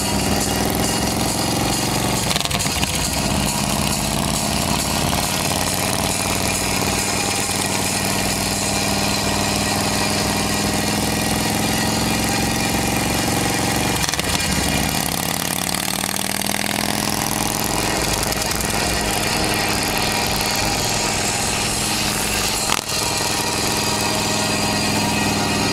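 Custom chopper motorcycle's engine running as it rides alongside, its pitch climbing with the throttle. About midway the pitch drops as it slows, then rises again as it accelerates.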